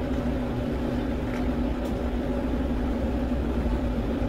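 A steady machine hum: a constant low drone with a held tone, like a running appliance motor.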